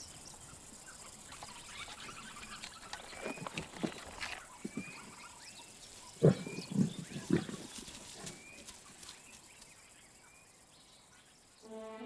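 Lions growling while feeding on a carcass, in two clusters of short grunts about three seconds in and again about six seconds in. Behind them, a bird repeats a short chirp every second or so.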